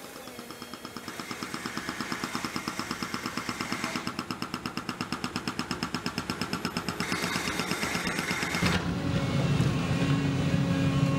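Excavator-mounted hydraulic breaker hammering asphalt in rapid, evenly spaced blows. Near the end it gives way to a heavy Volvo excavator's diesel engine running with a steady low drone while it digs.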